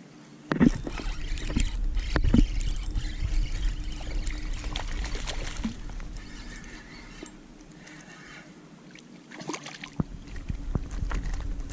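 Shallow bay water splashing and sloshing close to the microphone, starting suddenly about half a second in and easing after about six seconds, then picking up again near the end, over a low rumble and a faint steady hum.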